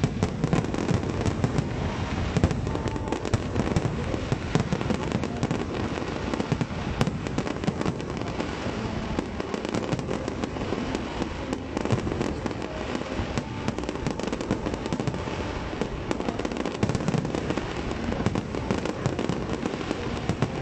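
Aerial fireworks display: a continuous barrage of shell bursts, with many sharp cracks and crackling over a steady low rumble of booms.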